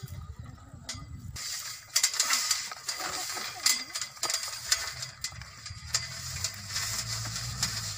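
Handling noise of a rope being wrapped and knotted around a steel riser pipe: a busy run of clicks, scrapes and rustles, sharpest from about two seconds in.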